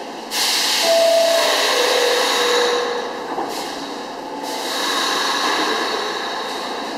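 R46 subway train at the platform: a sudden burst of hissing air, then a two-note door chime, high then low. A second hiss follows, and the train's running noise builds as it begins to pull out.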